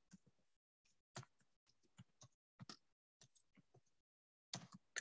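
Faint computer keyboard typing: single keystroke clicks at irregular intervals with short pauses between them.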